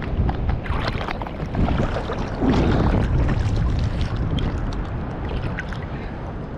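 Water sloshing and splashing in irregular bursts, with wind rumbling on the microphone.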